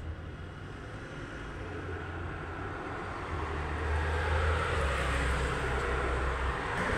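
Road traffic noise: a vehicle approaching and growing louder from about halfway through, over a low rumble.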